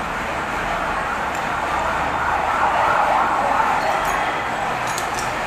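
Steady noise of passing road traffic, swelling for a second or two in the middle, with a few light metal clicks near the end as the engine's cylinder block is handled.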